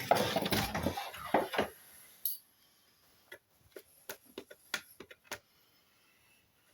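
Plastic parts and packaging of a new battery upright vacuum cleaner being handled: dense clattering and rustling for the first two seconds, then a scatter of light clicks and ticks.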